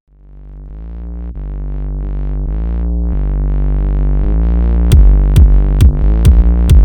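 Electronic music: a synthesizer chord swells up from silence, then a steady kick-drum beat comes in about five seconds in, a little over two beats a second.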